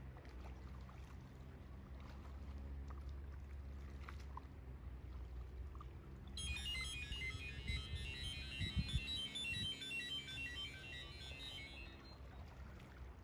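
Kayak paddling on calm water, with a low steady rumble of wind on the microphone and a few soft paddle knocks. About six seconds in, a high-pitched plinking melody like a phone ringtone starts and plays for about six seconds, then cuts off.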